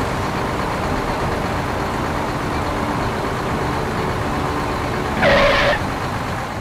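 A steady rushing hiss with a faint low hum under it, and one short horn blast about five seconds in.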